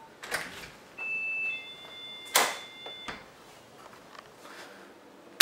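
A house's front door being unlatched and opened, with one sharp click about two and a half seconds in and a few softer knocks around it. A short steady electronic tone sounds for about two seconds just before the click.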